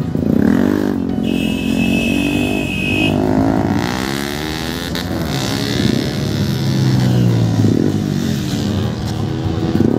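Several motorcycles pulling away in a group, their engines revving up and down as they ride off past the camera. A steady high-pitched tone sounds for about two seconds near the start.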